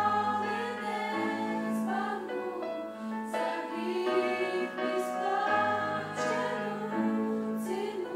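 Small choir of young women singing a slow song in several parts, with long held notes in harmony.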